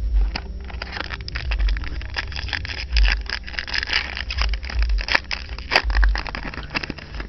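Dense crackling and rustling of trading card packs being handled: a foil wrapper crinkling and cards sliding against each other, with a few sharper clicks.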